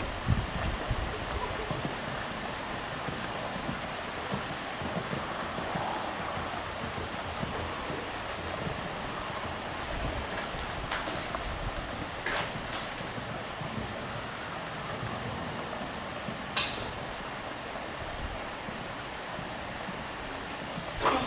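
Steady pouring rain, an even hiss, with a few short sharp ticks scattered through it.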